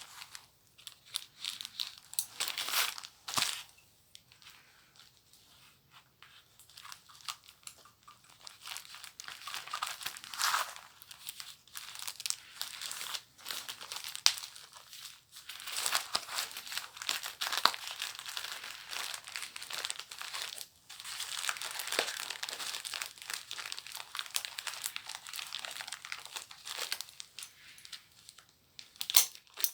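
Paper and plastic packaging being crinkled, handled and torn open by hand: irregular crackling and ripping, sparse for a few seconds after the start and then steady and dense.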